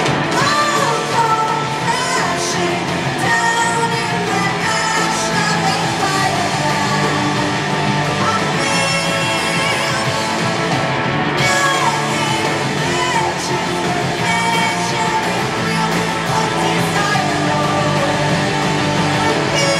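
Punk rock band playing live, loud and continuous, with a singer's voice over electric guitars.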